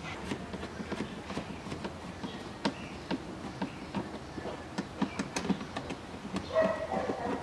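Hand screwdriver driving self-tapping screws into a plastic glovebox: a run of irregular small clicks and creaks. Near the end a short pitched sound comes in.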